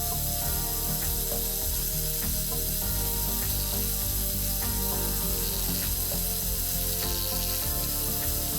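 Metalworking machine tool running steadily: gear drive noise with a low rumble, several steady tones and faint irregular ticks.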